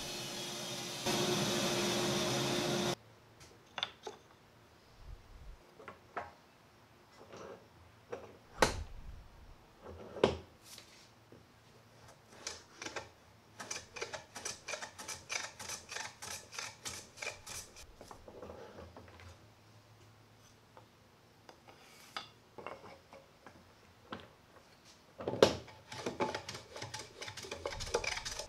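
A bandsaw running for about the first three seconds, then cutting off suddenly. After that comes a small wooden smoothing plane taking short strokes along the edges of small hardwood pieces, squaring them on a shooting board: strokes come singly and in runs of about three to four a second, with a few louder knocks in between.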